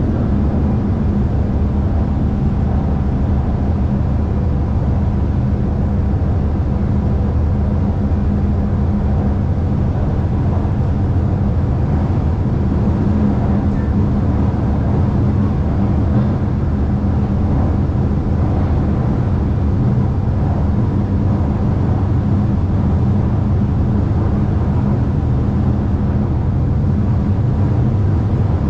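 Shanghai Metro Line 2 train running at steady speed between stations, heard from inside the car: a steady low rumble of wheels on rail with a faint even hum.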